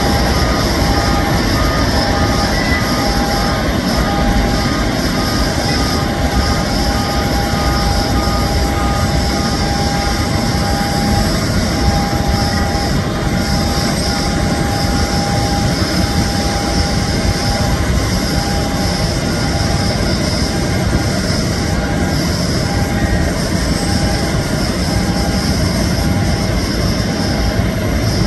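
Boeing 787 jet engines at low taxi power: a steady rumble with a faint high whine.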